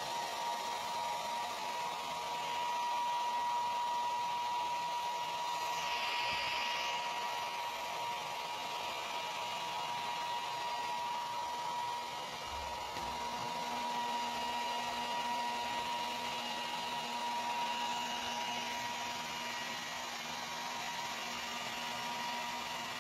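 Handheld electric hair dryer running steadily: a rushing hiss of air with a thin steady motor whine. The hiss swells briefly about six seconds in.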